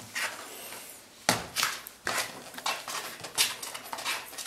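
Month-old Yorkshire terrier puppies playing and gnawing at a bare foot and flip-flop, a run of short, irregular scuffling and snuffling noises.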